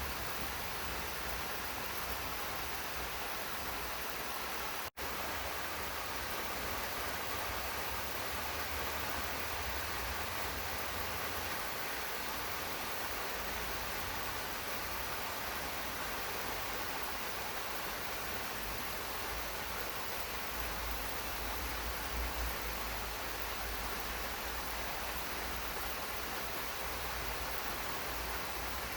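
Steady rain falling on a garden: an even hiss with a low rumble underneath, broken by a momentary dropout about five seconds in.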